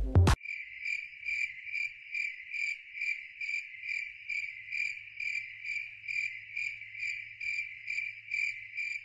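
Music cuts off abruptly just after the start, followed by crickets chirping in a steady, even pulse of a little over two chirps a second.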